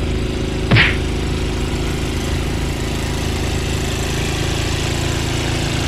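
Small gasoline engine of a two-stage snowblower running steadily under load. A single brief sharp noise cuts in about a second in.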